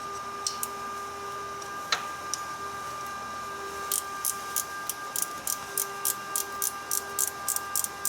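Hand ratchet wrench clicking as it is swung back and forth on a bolt, with a few single clicks at first, then a steady run of about four clicks a second from about halfway through. A faint steady hum sits underneath.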